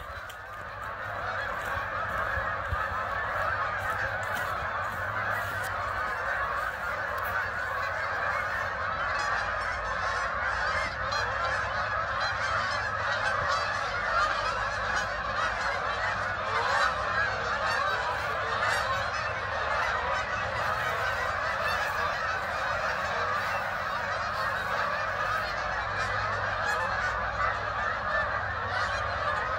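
Hundreds of geese flying overhead, honking: a deafening, continuous chorus of overlapping honks that swells up in the first second and then holds steady.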